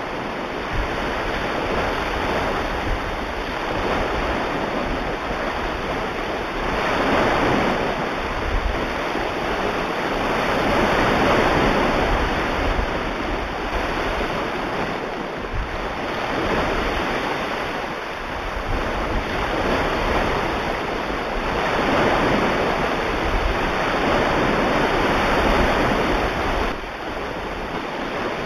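Recorded ocean surf: a steady wash of waves that swells and falls every few seconds.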